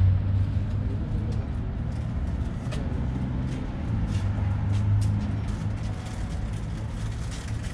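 Low, steady hum of a motor vehicle's engine running, swelling slightly about four to five seconds in, with a few faint clicks over it.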